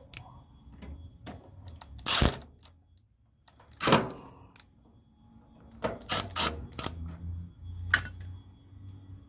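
Clicks and short clatters of hand tools and parts being handled during work on the wiring of a mini-split condenser. There are two louder clattering bursts about two and four seconds in, then a quick run of clicks and one sharp click near the end.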